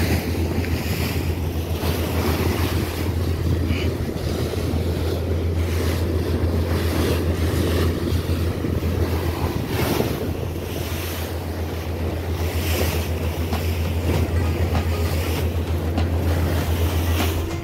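Motorboat under way: a steady low engine drone with water rushing along the hull and wind buffeting the microphone in gusts.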